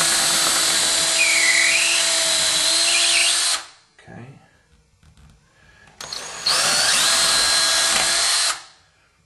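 DeWalt cordless drill boring pilot holes through a hardwood floor into the subfloor, the motor whining steadily as the bit cuts wood. It runs twice: once for about three and a half seconds, then again for about two and a half seconds after a short pause.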